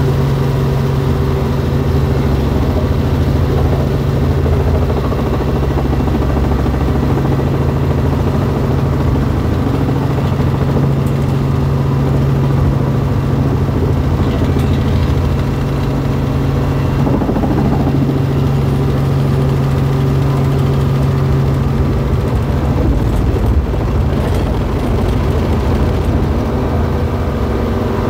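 Robinson R44 helicopter's engine and rotors heard from inside the cabin, a loud, steady running drone on the landing approach; its tone shifts a little past the middle as it comes down toward the helipad.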